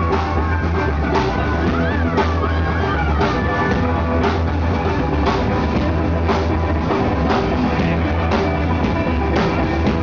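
Live three-piece band playing an instrumental passage: a drum kit with a hit roughly once a second over a steady low bass line. A few seconds in, a lead line bends up and down in pitch.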